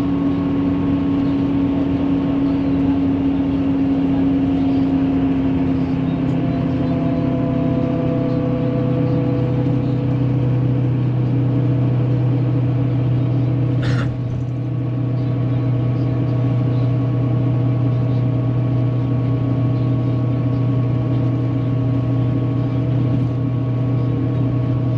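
Inside a moving coach: the engine drone and road noise run steadily, the engine note shifting lower about eight seconds in. A single short knock sounds about halfway through.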